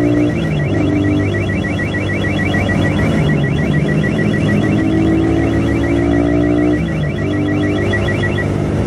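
Suzuki motorcycle alarm sounding in siren mode, set off from the remote by pressing the silent and unlock buttons together: a rapid, evenly pulsing high beep that stops near the end.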